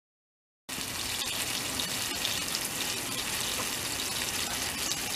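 Steady hissing spray of water jetting out of a split in a pressurised garden hose, starting abruptly under a second in. The split is a burst that the owner puts down to the hose freezing over winter.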